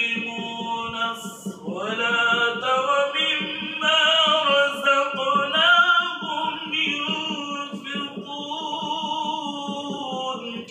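A man reciting the Quran in Arabic in the melodic, drawn-out tilawat style, holding long notes that glide up and down with ornamented turns.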